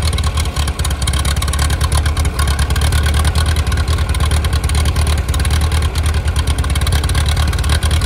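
Ferguson TO-30 tractor's Continental four-cylinder gasoline engine running steadily, loud and close, with a low, even pulse.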